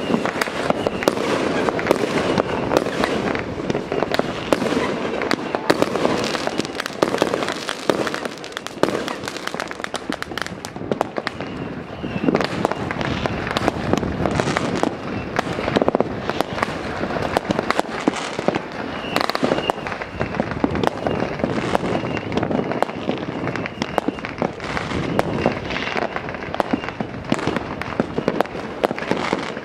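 Fireworks going off in large numbers at once: a dense, unbroken run of bangs, pops and crackling with no pause.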